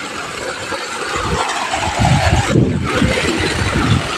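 Wind buffeting the phone's microphone: an uneven low rumble in gusts under a broad hiss.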